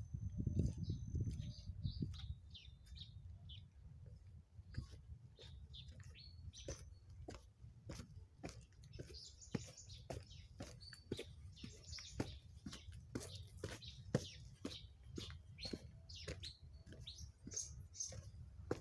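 Birds chirping in short high calls, over a run of sharp ticks about two a second and a low rumble that is strongest at the start.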